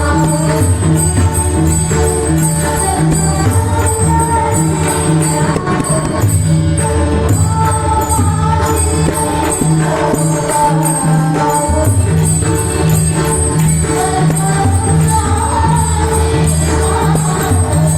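Varkari bhajan: a woman's singing voice with a group joining in, over pakhawaj and tabla drumming and steady jingling cymbal strokes in a regular rhythm.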